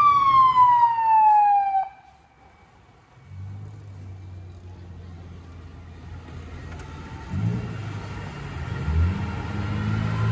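Fire engine siren sounding briefly and winding down in pitch, cut off about two seconds in. Then the truck's engine runs with a low steady drone that grows louder from about seven seconds in as the fire engine approaches.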